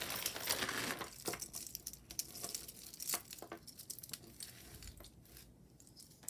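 Plastic bag crinkling as it is handled for about the first second, followed by scattered light clicks and taps of small jewelry pieces being picked up and set down.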